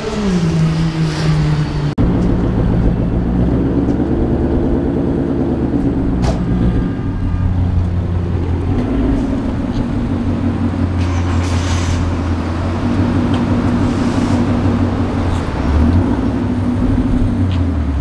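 Ford Mustang GT's 5.0 V8 engine running at idle with a steady low burble, after its revs drop away right at the start.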